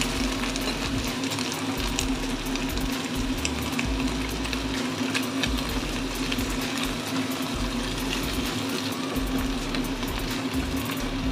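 Cabbage, meatballs and other vegetables sizzling in a nonstick frying pan, with a steady hiss and scattered crackles while a wooden spatula stirs them. A steady low hum runs underneath.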